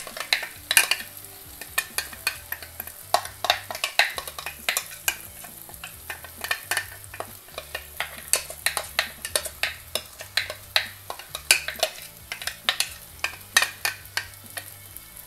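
A spoon scraping and knocking ground masala out of a plastic mixer-grinder jar into a pan, with many irregular sharp clicks and scrapes, over a faint sizzle of onions and tomatoes frying in oil.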